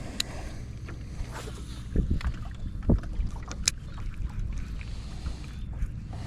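Steady low rumble of wind on the microphone, with a few scattered knocks and clicks about two to four seconds in.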